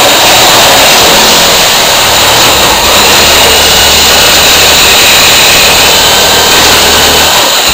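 Handheld corded power tool running steadily against an old lath-and-plaster wall as the plaster is stripped off, cutting out near the end.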